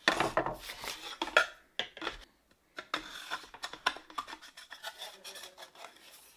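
Thin wooden panels scraping and sliding against each other and the tabletop, with light clacks as the slotted boards are picked up and fitted together. The scraping is loudest in the first second or so and thins out toward the end.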